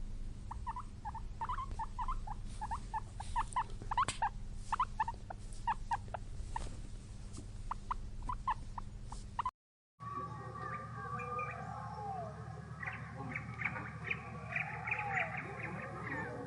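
Animal calls in two separate clips: first a run of rapid, short, high squeaks, then, after a brief silence about halfway in, a different recording of chirps and sliding whistled calls.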